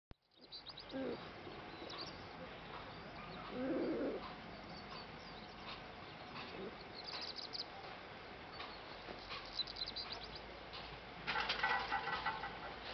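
Birds: low cooing twice in the first few seconds, and short high chirps scattered throughout. Near the end comes a louder burst of rapid high chirping.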